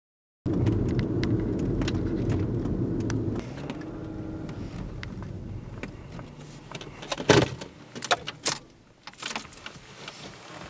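Low rumble of a car engine heard inside the cabin, dropping away about three seconds in. Then a run of clicks and sharp rattles, keys jangling and the car's interior being handled, the loudest clatter just past the middle.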